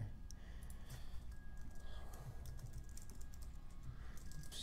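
Computer keyboard typing: a run of irregular keystrokes as code is entered.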